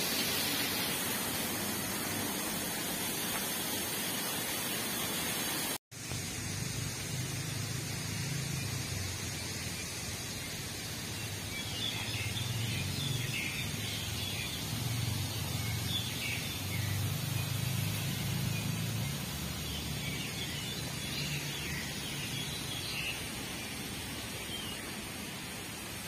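Steady outdoor hiss of park ambience, broken by a sudden dropout about six seconds in. After it a low, wavering rumble runs under the hiss, with faint high chirping in the middle stretch.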